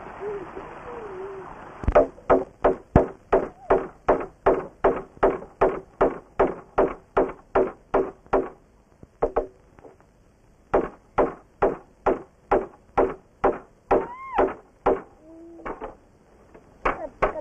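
Rapid, even knocking blows, about three a second, each with a short ringing tone, in runs of several seconds with a pause of about two seconds between them.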